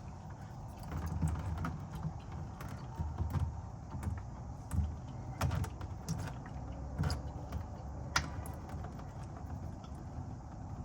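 Irregular clicks and knocks, about one a second, as the oil filter is unscrewed by hand and the oil pan is handled under the engine, over a low rumble.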